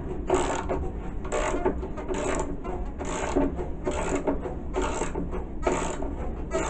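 A wrench turning the tensioner bolt of an air handling unit's fan motor, in strokes about once a second, to slide the motor on its base and change the drive-belt tension.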